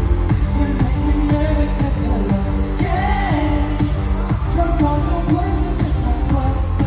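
A pop song played loud through a concert sound system, with singing over heavy bass and a steady beat.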